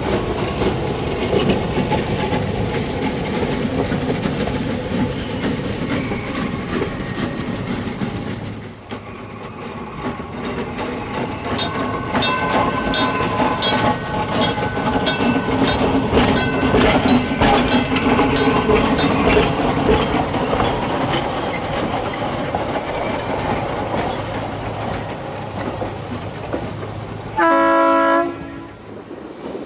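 Electric interurban trolley car running along the track, its motors humming under a steady rumble, with a stretch of rhythmic wheel clicking midway. Near the end it gives one short horn blast, under a second long.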